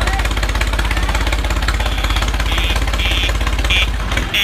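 Diesel tractor engine idling with a steady, fast low chugging. In the second half, four short high-pitched beeps sound about half a second apart, and the engine note changes just before the end.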